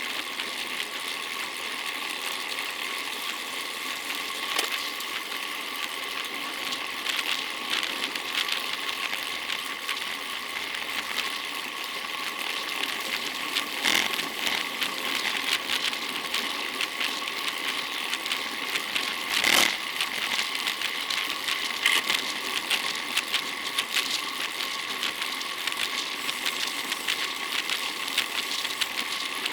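Steady wind and road noise with a fast mechanical rattle, as heard from a camera mounted on a road bicycle while riding, with a couple of louder knocks about halfway through.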